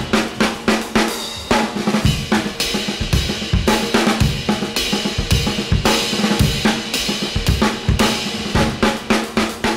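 Drum kit played with wooden sticks: a busy groove of snare, bass drum, hi-hat and cymbal hits, several strikes a second.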